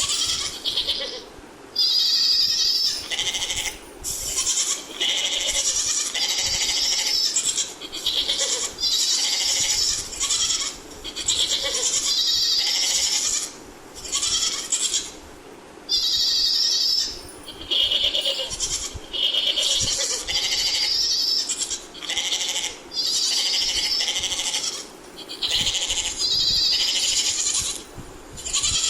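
Goat bleating over and over, a high-pitched call every second or two, each call under a second and a half long.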